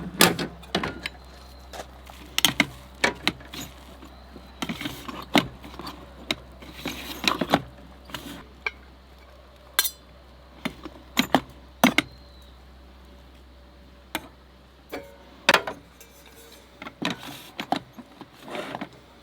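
Irregular clinks, taps and knocks of metal utensils against cookware, a few with a short metallic ring, as food is scooped and served.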